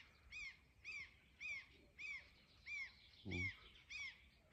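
A bird calling over and over: a short note that rises and falls, repeated evenly about every half second. A brief low, voice-like hum comes about three seconds in.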